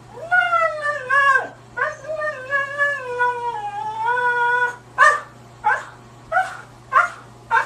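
Siberian husky howling and 'talking': long, wavering woo-woo calls that bend up and down in pitch for about four and a half seconds, then five short, sharp yelps about every 0.6 s. A steady low hum runs underneath.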